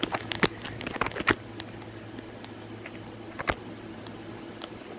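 A DVD player loading a disc: scattered sharp clicks from the mechanism, several in the first second and a half and one more about three and a half seconds in, over a steady low hum.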